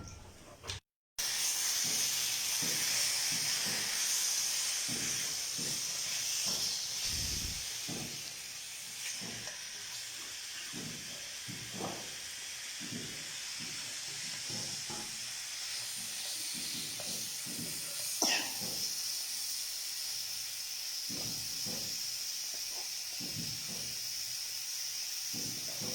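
Steady sizzling hiss of food frying in a wok, with faint scattered knocks.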